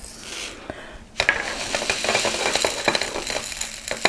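Many small black resin diamond-painting drills rattling and clinking together in a dense clatter of small clicks, starting about a second in.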